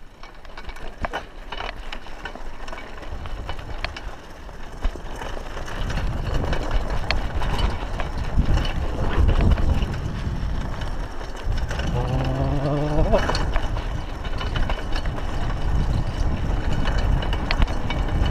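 Mountain bike ridden over a rough dirt track: wind noise on the chest-mounted camera's microphone and tyre noise, getting louder after about six seconds, with scattered clicks and rattles from the bike. A brief hummed tone from a man's voice about two-thirds of the way through.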